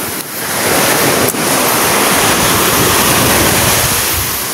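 Sea waves washing ashore, with wind blowing on the microphone: a steady, loud rush of noise. The water is high and rough from a nearby low-pressure system.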